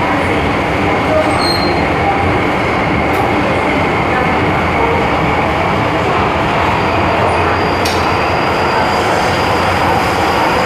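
MTR M-Train metro car running, heard from inside the carriage: a steady wheel-and-rail rumble, with a faint thin high tone coming in about seven seconds in.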